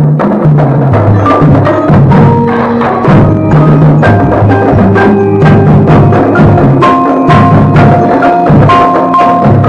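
Marimba played with four yarn mallets in an indoor percussion ensemble piece. Struck notes and chords follow one another about every half second, ringing over low sustained bass tones.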